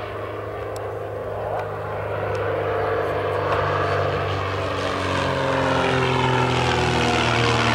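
Aerobatic biplane's piston engine and propeller droning, growing louder, with its pitch sliding slowly down.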